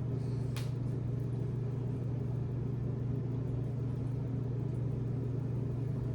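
A steady low hum, with one faint click about half a second in.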